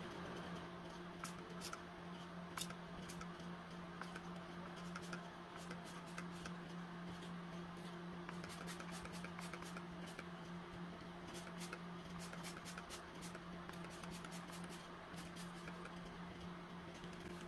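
Scattered light clicks and taps from hands handling a ceramic figurine and paintbrush over newspaper, with a steady low hum underneath.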